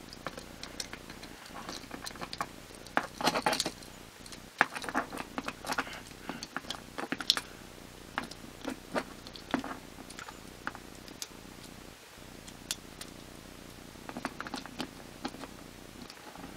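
Small plastic transforming toy figure being handled, its hinged parts clicking and rattling in irregular clusters as limbs and panels are snapped into place.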